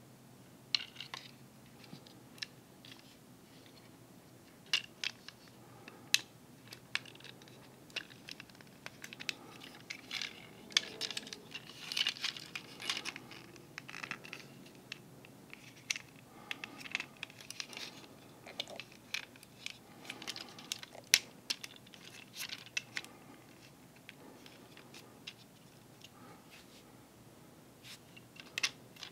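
Small plastic Transformers figure (Reboost MP-54) being transformed by hand from car into robot: irregular clicks and snaps of its plastic joints and panels, mixed with brief rustling.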